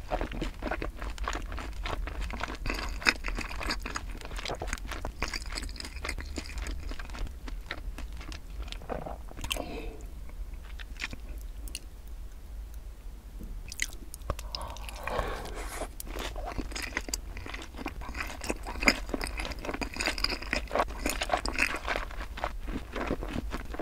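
Close-miked chewing of sauced boneless fried chicken: wet, crunchy mouthfuls with lip smacks. The chewing goes quiet for a few seconds near the middle, then a fresh bite and chewing start again.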